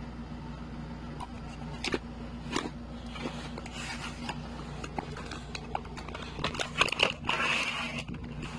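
Handling sounds of unboxing: scattered knocks and clicks of a box and its contents being handled, with a short burst of packaging rustle about seven seconds in, over a steady low hum.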